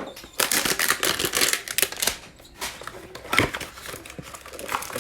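A hanger box of basketball trading cards being opened and handled: irregular crinkling and rustling of cardboard and packaging, densest in the first couple of seconds, then a few separate sharp rustles.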